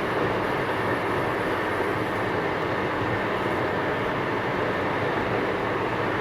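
Cars of a long train rolling past, a steady noise of wheels on the rails.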